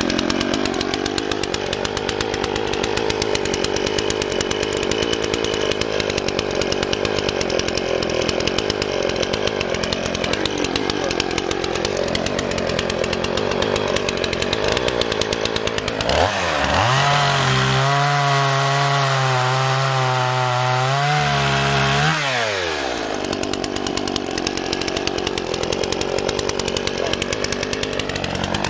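Old Dolmar two-stroke chainsaw running at a low, rough idle. Past the middle it is revved up to a high, steady pitch for about six seconds, then drops back to idle, and it starts climbing again at the very end.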